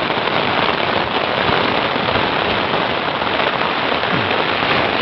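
Heavy rain pouring down at sea in a steady, dense hiss, with drops striking close to the microphone.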